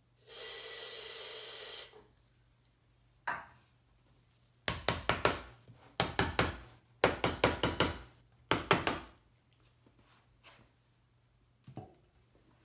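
Bloxygen preservative gas sprayed into an open can of spar varnish: a steady hiss lasting about two seconds. A few seconds later the metal lid is tapped shut with a screwdriver handle, four quick runs of sharp knocks.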